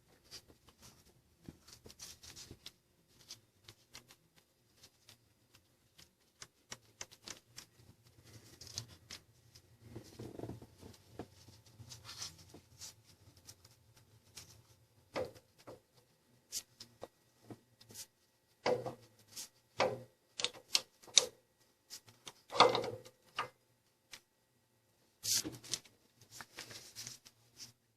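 Hand tools clicking and knocking against metal engine parts during timing-chain work, in irregular sharp clicks with several louder knocks in the second half.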